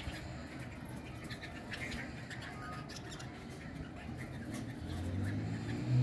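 Red-vented bulbuls feeding on a corrugated tin roof: faint scattered chirps and light taps from the birds. A low steady hum comes in near the end.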